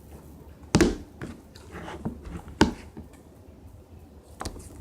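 Homemade slime with cotton mixed in being squeezed and played with by hand, giving a few sharp pops and squelches, the two loudest about a second in and just past halfway.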